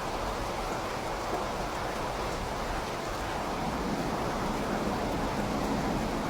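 Steady rain falling, an even hiss with no separate drops or events, growing slightly louder about two-thirds of the way in.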